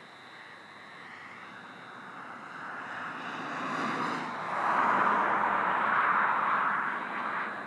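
Vehicle noise: a steady rush that builds from about two seconds in, is loudest for a couple of seconds in the second half, then eases off near the end.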